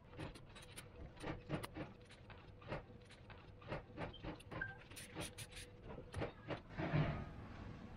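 Handling of a black backing disc and a crystal paperweight, with irregular light clicks throughout and a louder rustle about seven seconds in.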